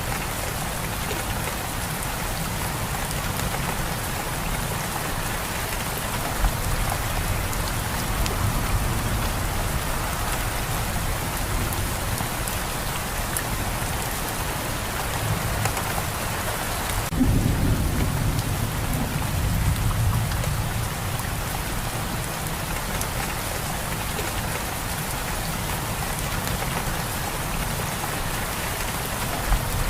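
Steady rain pattering on surfaces, with a low rumble of thunder that starts suddenly a little past halfway and rolls on for a few seconds.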